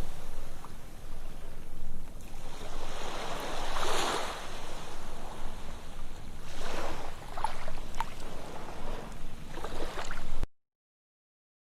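Ocean waves breaking and washing up on a sandy beach, the surf swelling and easing every few seconds. The sound stops abruptly near the end.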